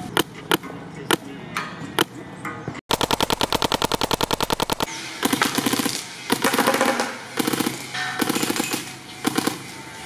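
Planet Eclipse GEO CS2 paintball marker firing, each shot a short bang without hiss. At first there are scattered single shots. About three seconds in comes a fast, even string of shots lasting about two seconds, followed by more shots in quick clusters.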